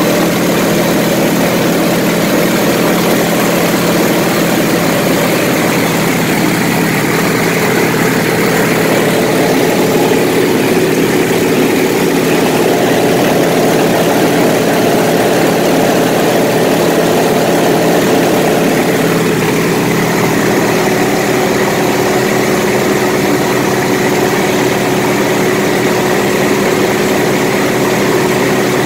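Single-engine propeller airplane in flight, heard from inside the canopied cockpit: a steady engine drone over the rush of airflow. The engine's pitch steps down slightly about twenty seconds in.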